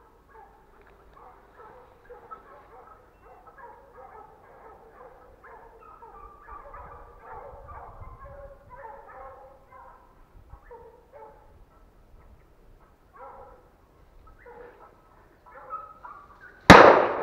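Hunting dogs barking and baying in the distance, faint and broken, then one loud, sharp gunshot from the hunter's gun about a second before the end, fired at a wild boar.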